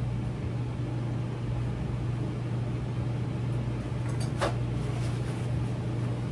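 A steady low mechanical hum, with a short rip about four seconds in as a paper towel is torn off its roll.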